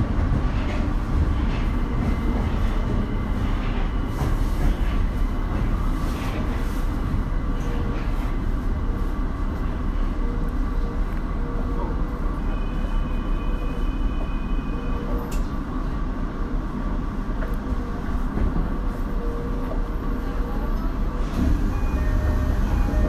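Tokyo Metro 02 series subway train running, heard from inside the car: a steady rumble of wheels and motors on the track. A faint high whine is heard from about twelve to fifteen seconds in.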